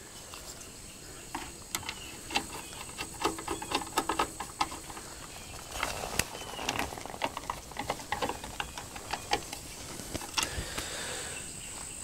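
Scattered, irregular clicks, taps and rustles of hand handling as the camera is picked up and moved close against clothing, over a steady high whine of insects.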